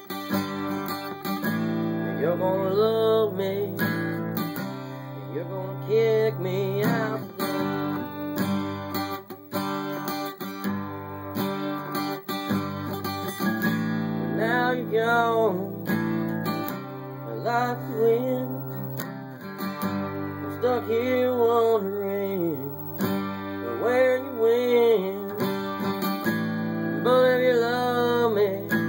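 Texas country music: strummed acoustic guitar chords with a wavering melody line over them, playing without a break.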